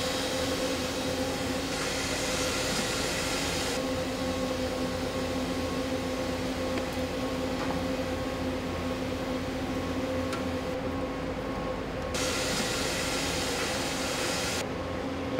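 Steady hum of running food-processing machinery with a constant low tone. A higher hiss cuts in and out abruptly several times.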